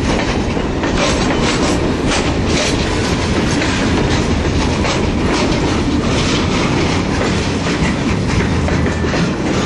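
Freight cars (tank cars, covered hoppers and a flatcar) rolling past close by: a steady rumble of steel wheels on rail, with scattered clacks as the wheels cross rail joints.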